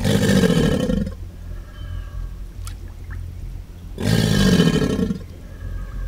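Alligator bellowing: two deep, rumbling bellows, each about a second long, one at the start and one about four seconds later, with the throat puffed out and the head raised above the water.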